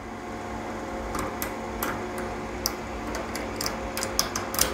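Irregular sharp metal clicks and scrapes as long-nose pliers grip and work a retaining pin inside the brass water inlet of a gas geyser's water valve, coming faster near the end, over a steady low hum.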